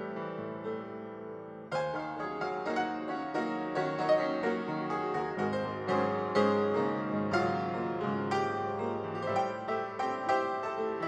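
Piano music, a steady run of struck notes; just under two seconds in it grows louder and fuller as a new phrase begins.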